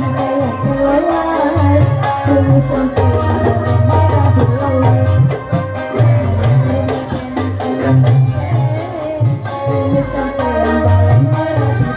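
Loud music with a steady beat and a wavering melodic line.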